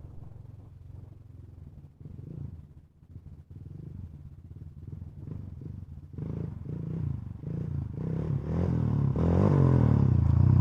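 ATV engine revving in repeated rises and falls of pitch, faint at first and growing steadily louder over the second half.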